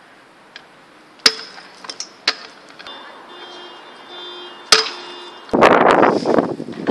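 Stunt scooter clanking sharply against brick and pavement three times, each hit ringing briefly like metal. From about five and a half seconds in comes a loud, continuous rough scraping as the scooter runs along rough concrete.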